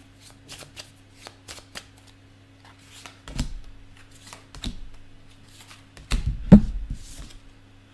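Tarot deck being shuffled by hand: a run of quick, light card flicks, with heavier knocks about three and four and a half seconds in and the loudest cluster of knocks a little after six seconds. A faint steady hum sits underneath.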